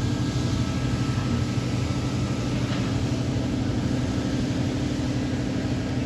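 A steady low mechanical hum at an even level.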